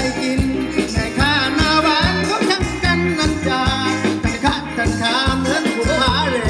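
A band plays Thai ramwong dance music. It has a steady drum beat and a wavering lead melody over it.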